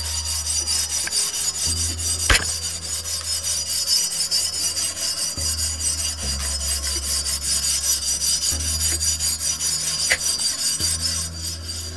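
Scotch-Brite abrasive pad scrubbed back and forth over the painted metal leg tube of a Gitzo tripod, in quick rasping strokes about four a second, scuffing the surface so that paint will key to it. There is a sharp click about two seconds in.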